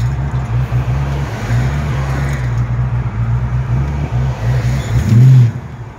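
1985 Ford Mustang GT's 5.0-litre V8 running with an uneven low rumble. It surges louder about five seconds in, then stalls near the end. The engine is rough at low revs and dies unless kept on the throttle.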